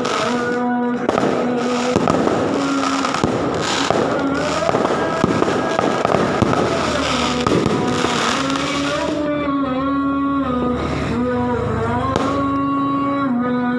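Fireworks crackling and popping densely, thinning out about nine seconds in. Under them a voice chants in long held notes that glide from one pitch to the next.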